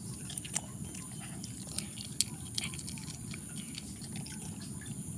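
Asian palm civet eating greedily: irregular wet clicks and smacks of chewing, the sharpest about two seconds in, over a steady low hum.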